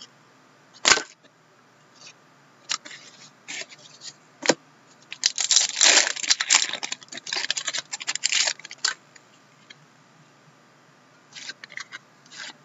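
A few sharp taps and clicks of cards being handled, then the foil wrapper of a hockey card pack torn open and crinkled for about four seconds, starting about five seconds in.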